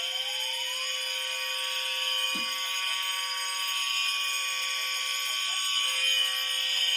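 Several fire alarm horns and sounders going off together in a steady, continuous tone, with a rising sweep tone finishing about a second in. A brief low thud sounds about two seconds in.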